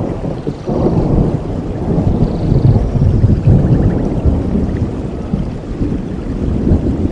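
Rolling thunder in a rainforest thunderstorm: a deep rumble swells about a second in, is loudest a few seconds later and slowly dies away, over steady rain.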